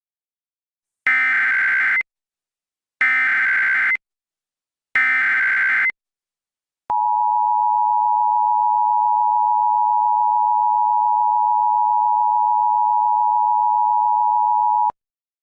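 Emergency Alert System broadcast tones: three one-second bursts of buzzy digital SAME header data, about a second apart, then a steady two-tone EAS attention signal held for about eight seconds before cutting off sharply.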